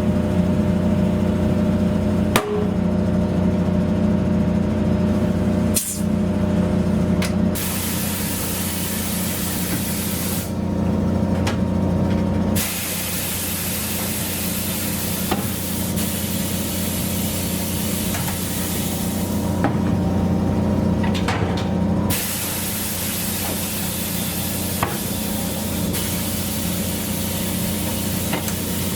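Compressed air hissing in several long stretches over a steady low machine hum in a tyre shop, with a couple of sharp clicks near the start.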